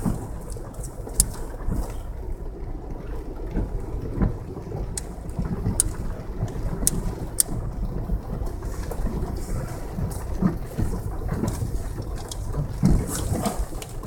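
Toyota 4Runner driving up a flowing creek in the rain: a steady low rumble of engine, tyres and water, with scattered sharp ticks.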